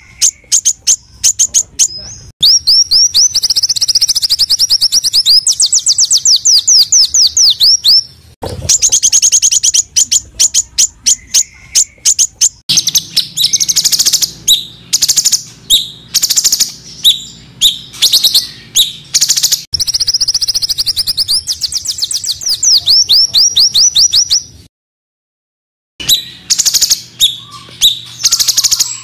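Small songbirds giving loud, fast, harsh rapid-fire trills and strings of high notes, the dense 'tembakan' phrases used to tutor cage birds, in several spliced segments with a brief silence about 25 seconds in.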